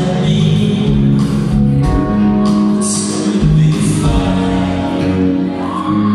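Indie rock band playing live through the hall PA: drums with recurring cymbal hits, electric guitars, bass and keyboards. It is heard from the audience in a large concert hall.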